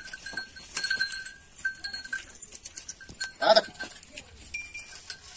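A small puja hand bell rung in quick strokes, its ringing tone coming and going, with one short goat bleat about three and a half seconds in.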